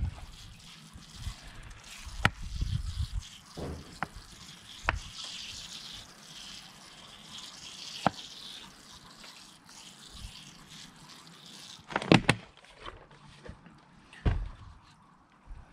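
A thin stream of water trickling from a plastic bottle with a watering spout onto compost in a plant pot. A few sharp knocks sound as the pot and bottle are handled, the loudest about two seconds in and again near the end.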